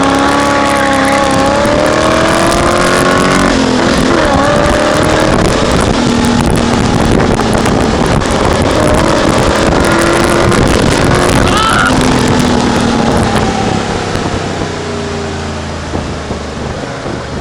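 Open-cockpit sports car's engine being driven hard around a track, with wind rushing over the car: the engine note climbs, drops at a gear change about three and a half seconds in and climbs again, rises and falls again later, and eases off near the end.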